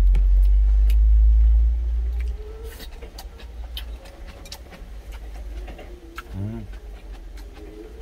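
Mouth-closed chewing, with small clicks of wooden chopsticks against a stainless steel bowl, over a low rumble that is strongest for the first two seconds and then fades to a steady background. A short rising hum comes about six and a half seconds in.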